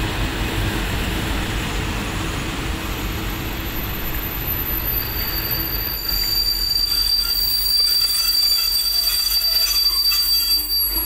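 V/Line locomotive-hauled passenger carriages rolling past a platform and slowing to a stop. A steady rumble is joined a few seconds in by a high, steady brake squeal that grows louder through the second half.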